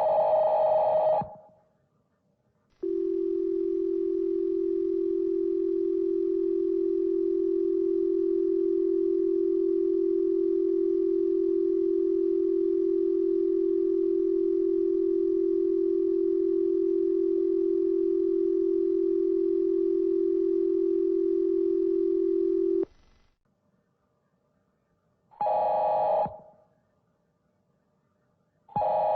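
American Emergency Alert System signal slowed to 0.4x speed, so everything sounds lower. A warbling digital data burst ends about a second in. After a short gap comes the steady attention tone, held for about twenty seconds before it cuts off. Two brief warbling data bursts follow near the end.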